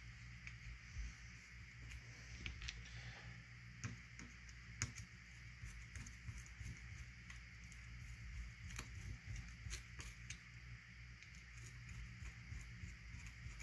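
Scattered small clicks and light scraping of a hand screwdriver turning a small screw into the housing of a 1949 McCulloch 1225A chainsaw, a screw being tried for fit.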